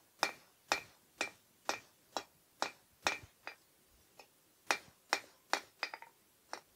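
Hand hammer striking hot steel on an anvil, drawing out the edge of a forged leaf on a 3/8-inch steel bar. Steady blows about two a second, each with a short metallic ring, a pause a little past halfway with one light tap, then the blows resume.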